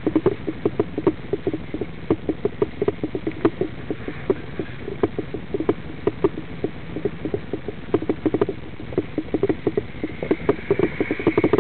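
Dense, irregular rattling clicks and knocks inside a stopped vehicle's cab over a low rumble, with a faint high whine near the end.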